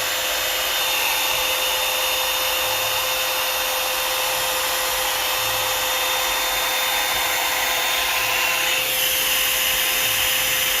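Asani 4-in-1 hot-air blow dryer brush running on its cool setting: a steady rush of air with a constant whine from its motor.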